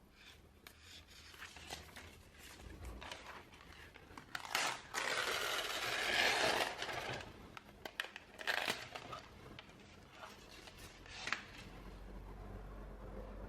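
Packaging being opened by hand: scattered taps, clicks and rustles, with a longer tearing, crinkling stretch from about four and a half to seven seconds in and a shorter one near nine seconds.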